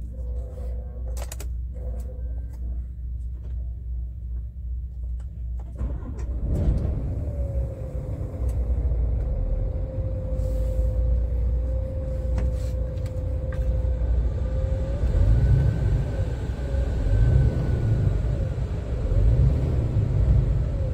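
Scania R410 truck's 13-litre inline-six diesel, heard from inside the cab. After a few clicks it starts about six seconds in and settles to a steady idle. From about fifteen seconds in it is revved briefly several times.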